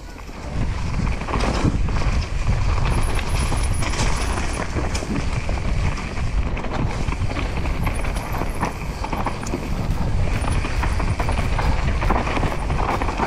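Mountain bike riding down a dirt singletrack covered in dry leaves: steady tyre noise on soil and leaves, with repeated rattles and knocks from the bike over bumps. Wind rumbles on the microphone.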